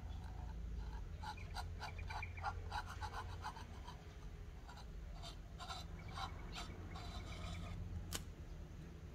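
Small metal palette knife scraping against the edge of a painted canvas in quick, short strokes, in three bursts, with a single sharp click near the end.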